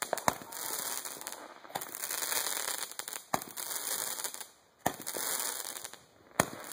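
Small Roman candle firing: a sharp pop about every second and a half as each shot leaves the tube, with a steady hissing of burning sparks between the shots.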